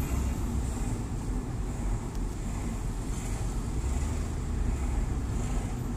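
Wind and road noise inside an open-top convertible on the move: a steady low rumble with wind buffeting the phone's microphone.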